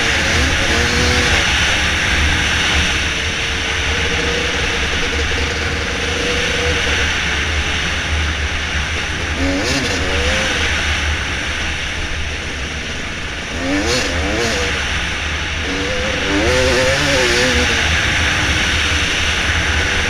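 Dirt bike engine running on a trail ride, holding a steady pitch and then revving up and down in quick bursts several times as the throttle is worked, over a steady rushing noise.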